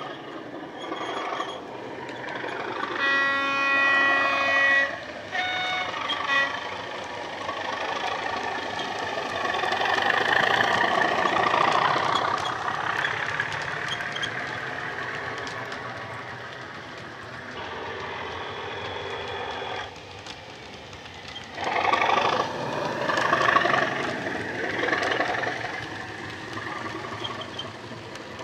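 Model Class 37 diesel locomotive's DCC sound, an English Electric engine recording played through a small EM1 speaker in the fuel tanks. A two-note horn sounds about three seconds in. The engine's growl then swells as the locomotive passes with its coaches, and grows loud again near the end.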